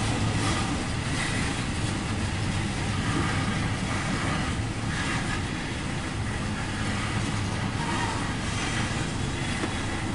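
CSX coal train's hopper cars rolling past close by: a steady rumble of steel wheels on rail, with a few faint clicks scattered through it.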